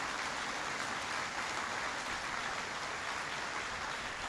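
Audience applauding steadily, a dense even clatter of many hands clapping.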